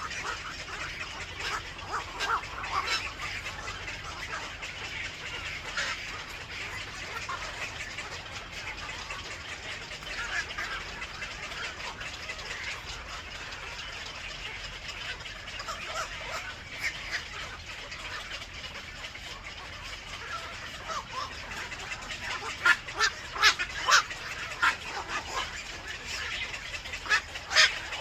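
Birds at a nest making many short calls, repeated on and off, with a louder run of calls about three quarters of the way through and again near the end.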